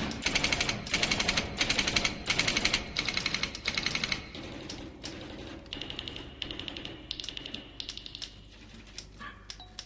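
Rapid typewriter-like clicking in bursts of about half a second, loudest for the first four seconds, then fading into fainter ticking under a thin high tone. A few short tones sound near the end.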